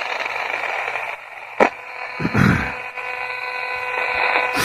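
Spirit box radio (a 20-125) sweeping through stations: steady hissing static with thin constant tones, a sharp click about a second and a half in and a brief louder burst of broadcast sound just after.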